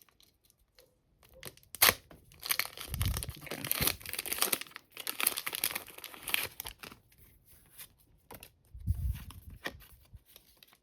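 Foil Pokémon booster pack wrapper being torn open and crinkled: a run of sharp crackling tears and rustles, densest in the middle, with scattered small clicks either side.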